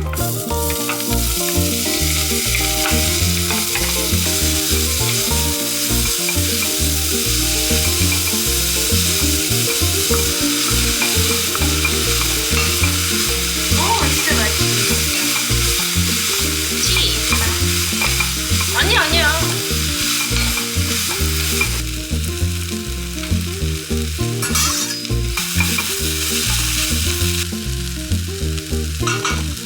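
Cajun jambalaya ingredients frying in a pan with a steady sizzle while being stirred, with a few brief scrapes of the utensil.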